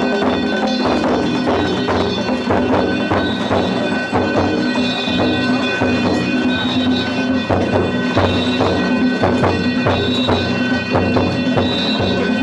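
Danjiri festival music: rapid drum and gong strikes over sustained ringing, droning tones.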